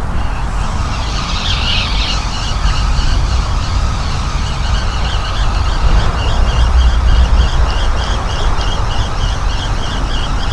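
Wind buffeting the microphone with a heavy low rumble. Over it comes a high, rhythmic squeaking or chirping, about three pulses a second.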